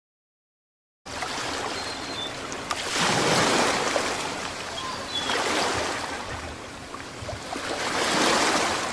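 Ocean surf washing onto a beach, a steady rush that starts after about a second of silence and swells three times as the waves break and run up.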